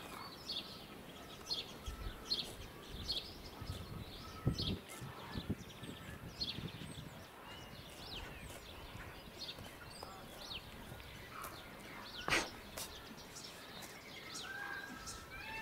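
Small songbirds chirping, short scattered calls over a quiet outdoor background, with one sharp knock about twelve seconds in.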